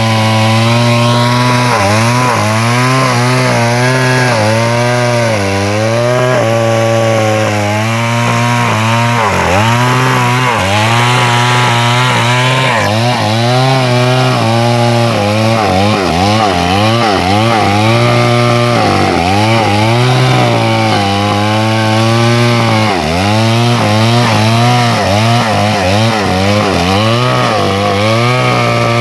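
Chainsaw cutting into a tree trunk to fell it. It runs loud and steady, and its pitch dips and climbs back about once a second as the chain bogs in the wood and recovers.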